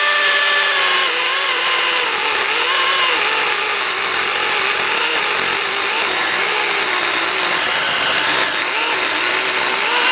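Husqvarna 120i battery-powered electric chainsaw, fitted with a new chain, cutting steadily through a log. Its motor whine wavers slightly in pitch as the chain bites into the wood.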